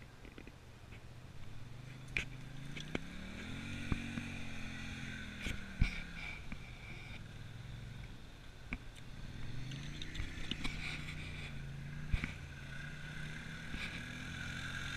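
Quad bike (ATV) engine revving up and easing off twice as it is ridden, the pitch rising and falling, with a few sharp knocks.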